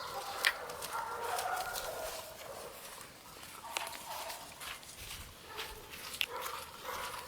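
Pit bull puppies playing, with short, wavering, high-pitched whines and yips and scattered sharp clicks and taps.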